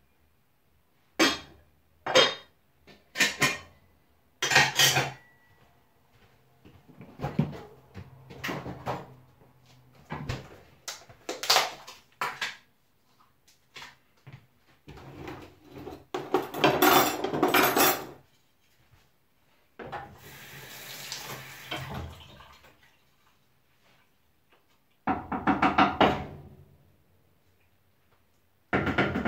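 Kitchen clatter: metal pots, lids and utensils knocking and clanking in a series of separate, ringing strikes, with a short stretch of running water partway through.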